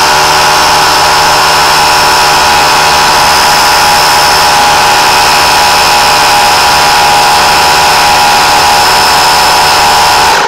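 McGraw 3-gallon, 1/3 HP oil-free pancake air compressor running under load, its pump filling the tank from empty toward 60 PSI: a loud, steady, unchanging running sound that cuts off suddenly at the very end.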